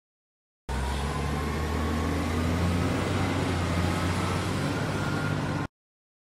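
Truck engine running steadily, a low hum that starts abruptly about a second in and cuts off suddenly about five seconds later.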